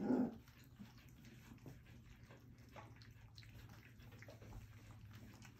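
Young puppies lapping and slurping soft food from a shallow metal saucer pan, with many faint small wet ticks. A short puppy whimper sounds right at the start.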